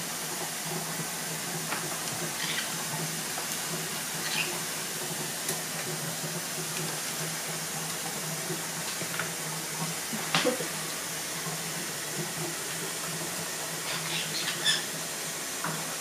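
African grey parrot bathing in a shallow plastic tub of water, making scattered small splashes as it dips and shakes, the loudest about ten seconds in and another near the end, over a steady low hum and hiss.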